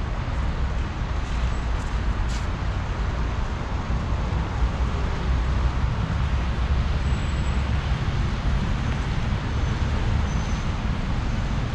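Steady city road traffic: cars running on a wet, slushy road, heard as a continuous low rumble with tyre hiss.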